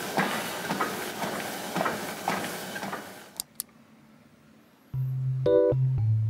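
Treadmill running with walking footfalls on the belt, about two a second, over a steady hiss; it stops about three seconds in, two sharp clicks follow, and soft keyboard music begins near the end.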